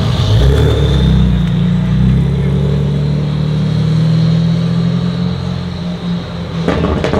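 BMW M3 G80's twin-turbo straight-six with an Akrapovic exhaust, running steadily at low revs as the car rolls through at low speed.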